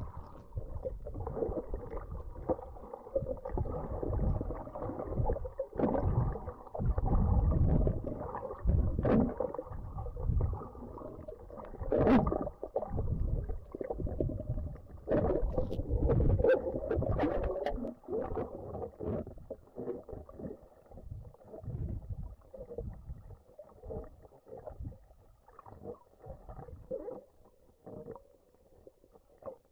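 Muffled underwater rumbling and sloshing picked up by a camera held underwater, with irregular surges of water movement and a few sharp crackles near the middle.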